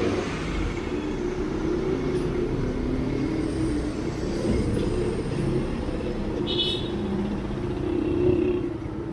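Street traffic: vehicle engines running steadily.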